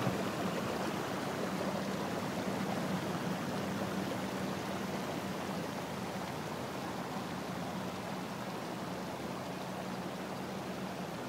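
Steady rush of flowing floodwater from a river out of its banks. The sound is an even wash of noise that eases slightly over the seconds.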